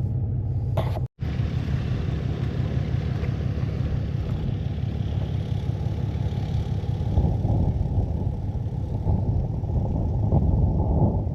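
A steady low rumble that cuts out for an instant about a second in, then carries on with uneven swells toward the end.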